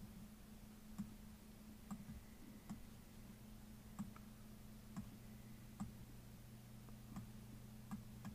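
Computer mouse button clicking about once a second, each click adding a point to a contour outline, over a faint steady hum.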